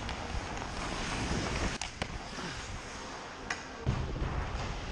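Hockey skates scraping and gliding on rink ice under a steady rush of noise, with a few sharp cracks of sticks and pucks: two close together about two seconds in, another about three and a half seconds in, and a heavier knock just after.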